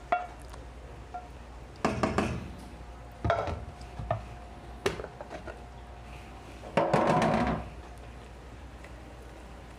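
Cookware clatter: a wooden spoon scraping and knocking against a metal pan and pans being handled, in several short separate knocks and scrapes, the longest about seven seconds in.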